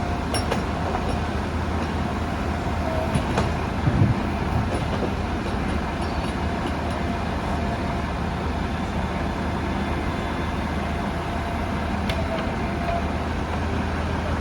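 Backhoe's diesel engine running steadily, with a few short knocks over it, the loudest about four seconds in.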